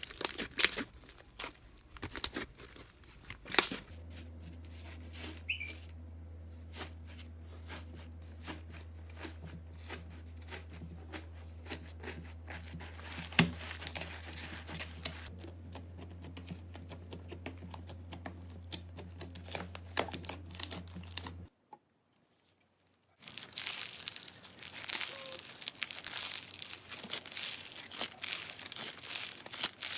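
Slime being squeezed and pressed by hand, with dense crackling and popping clicks. A low steady hum sits under much of it. The sound drops out briefly past the two-thirds mark, then the crackling returns.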